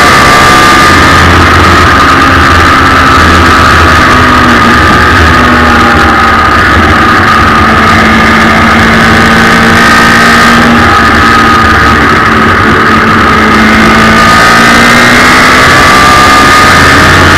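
Suzuki Hayabusa inline-four motorcycle engine in a race car, running loud at high revs under way, heard onboard; the pitch holds fairly steady with small dips and rises.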